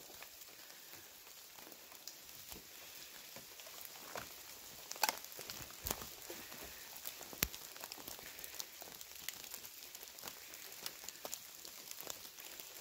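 Footsteps crunching over dry pine needles, twigs and forest litter: a faint, irregular crackle with a few louder snaps of sticks about five, six and seven and a half seconds in.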